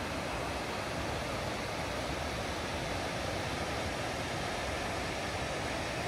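Mountain river rushing over rocks through rapids: a steady, even roar of white water.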